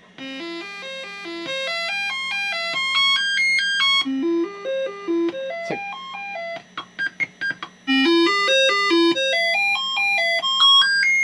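A Commodore 64's SID sound chip plays the diagnostic cartridge's sound test: runs of stepped electronic notes climbing and falling in pitch, over a steady low buzz. Past the middle, a stretch of short choppy blips breaks in. The SID is faulty: the notes play wrong and the output is buzzy.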